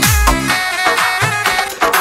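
DJ remix of a Rasiya folk song: an electronic dance beat with heavy kick drums whose bass slides down in pitch, under a bright melody. The kicks drop out briefly after the first beat and come back at the end.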